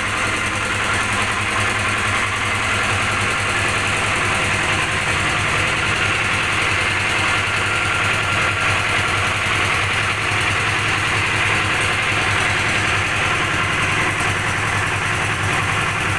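An engine running steadily at idle, a low even hum with a strong hiss over it.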